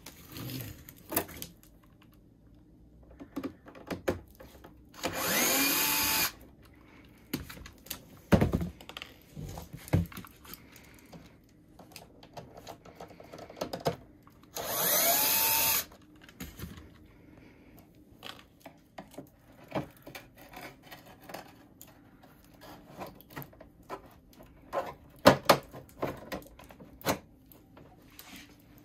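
Cordless drill-driver running twice for about a second each, its whine rising as it spins up, backing screws out of the hinge on a washing machine's sheet-metal door cover. Between the runs come sharp clicks and knocks of the plastic-and-metal door being handled, the loudest near the end.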